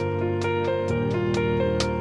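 Gentle instrumental background music: a plucked melody of about four or five notes a second over held chords and a bass line.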